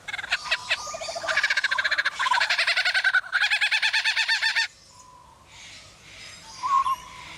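Superb lyrebird calling: a loud, rapid run of repeated rattling pulses that cuts off suddenly about two-thirds of the way through, then a single short call near the end.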